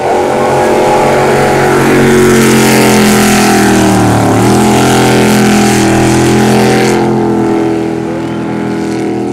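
Jet sprint boat engine running hard at high revs, with a loud hiss of spray over it. The engine pitch dips briefly a little after four seconds in and climbs again. The hiss drops away about seven seconds in while the engine keeps running.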